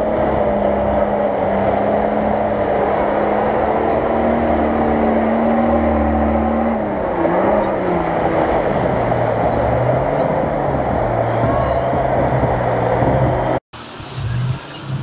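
Modified off-road SUV's engine running hard at high revs as the vehicle churns through a deep mud pit, the pitch dipping and wavering about seven seconds in, then holding lower. Near the end the sound cuts off abruptly and resumes quieter.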